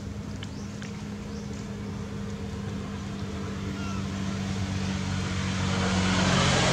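A motor engine running with a steady low hum, growing louder toward the end as it approaches.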